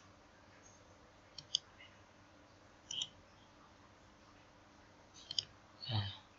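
Computer mouse clicks: a quick double-click about 1.5 s in, a single click about 3 s in and another double-click near the end, over faint steady hiss. A brief low vocal sound follows right at the end.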